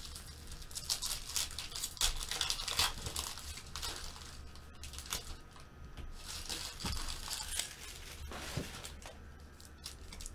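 Foil trading-card pack wrappers being torn open and crinkled by hand, in irregular crackling bursts, with a couple of soft knocks near the end as packs are handled.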